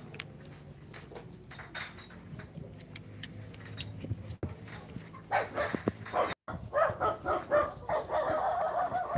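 Puppy whining in a run of high, wavering cries starting about five seconds in, with small clicks and rustles of it being handled before that.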